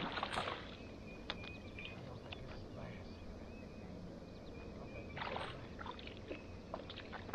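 A hooked largemouth bass splashing at the water surface as it is played in, in two short bursts: one at the start and one about five seconds in.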